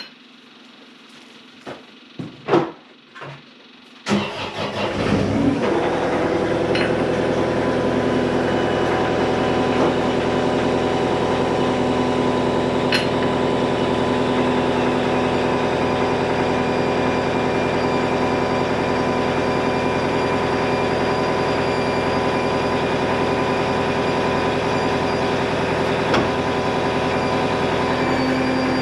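A few light clicks and knocks, then about four seconds in the skid steer's engine cranks, catches and settles into a steady idle.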